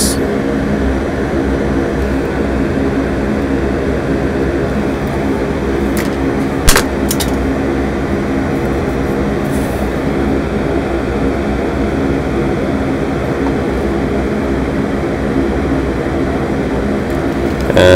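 A steady machine hum with several steady low tones, and a few light clicks about six to seven seconds in, one of them sharper.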